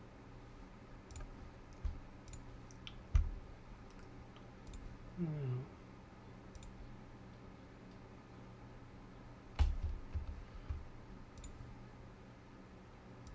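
Scattered, irregular clicks of a computer mouse and keyboard while a CAD program is worked, about eight in all, over a low steady hum.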